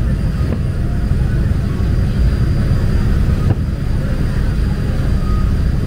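Ferryboat's engine and the rush of its wake making a loud, steady low rumble, with two faint thuds about half a second and three and a half seconds in.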